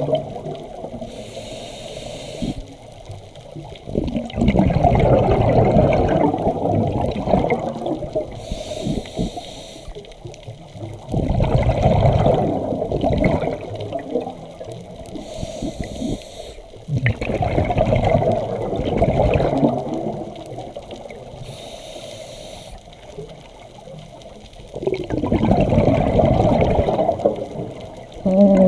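Scuba diver breathing through a regulator underwater: a short hiss on each inhale, then a longer burst of bubbling on each exhale, four breaths about seven seconds apart.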